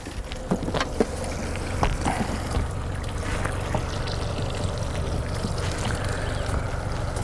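Water sloshing and trickling around a small fishing boat over a steady low rumble, with a few sharp clicks in the first couple of seconds.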